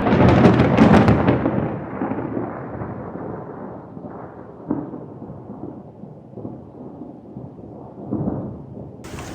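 Thunder from an approaching storm: a loud crack that rolls on, loudest in the first second and a half, then dies away over several seconds with two smaller swells.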